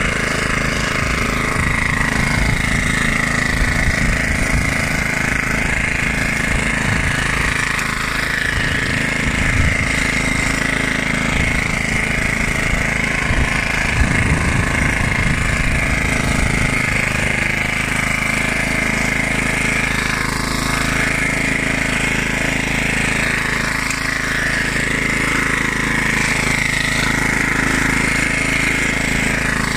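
1976 Hayterette rotary lawnmower's 3.5 hp Briggs & Stratton side-valve (flathead) engine running steadily at working speed while cutting grass. Uneven low rumbling for about the first half settles to a smoother, steadier note later on.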